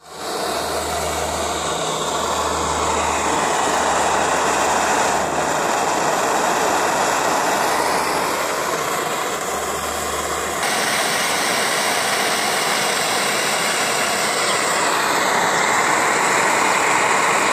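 Pressurised petrol camping stove burning at full flame, a loud, steady rushing hiss from the burner. Its tone shifts abruptly about ten seconds in.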